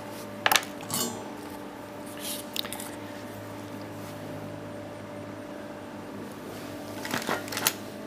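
Light clinks and taps of small tools being handled and set down on a workbench: a couple about half a second in, a few around two and a half seconds, and a cluster near the end. A steady low hum runs underneath.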